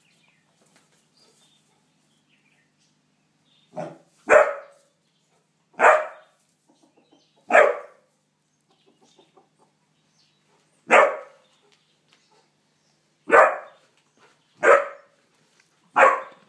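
Basset hound puppy barking in play: eight short barks spaced one to two seconds apart, beginning about four seconds in, with the first two close together.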